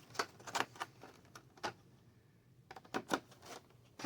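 Light clicks and rattles from board-game trays and pieces being handled and set down. A string of short sharp clicks runs through the first second and a half, there is a brief pause, and a few more clicks come around three seconds in.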